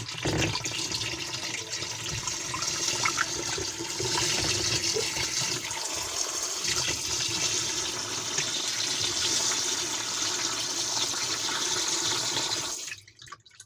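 Water rushing steadily in a semi-automatic washing machine's tub as it is flushed out to clear dirt, cutting off suddenly near the end.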